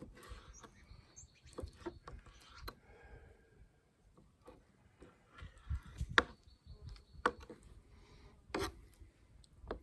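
Knife trimming strips of raw deer heart: quiet, irregular scraping and soft taps of the blade, with a few sharper knocks about six and eight and a half seconds in.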